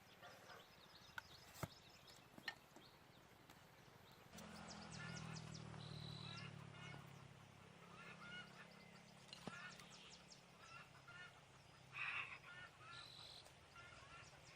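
Birds calling in many short, repeated notes, with a few sharp clicks early on and a low steady hum from about four seconds in.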